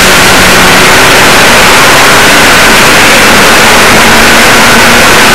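Loud steady hiss with the faint, steady drone of a Poclain EC 1000 hydraulic excavator's engine working underneath it.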